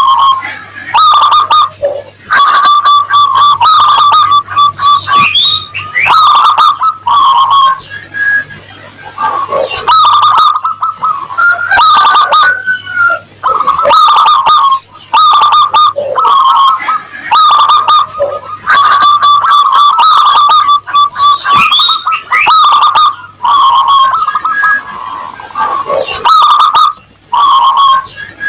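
Zebra doves (perkutut) calling, with repeated trilled coos following one another almost without pause. A faint steady electrical hum sits underneath.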